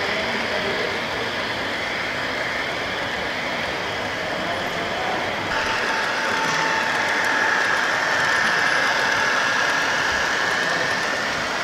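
H0-scale model trains running on the layout: a steady rolling noise of wheels on the track, with a high steady whine joining about five and a half seconds in as a model diesel locomotive hauling container wagons passes.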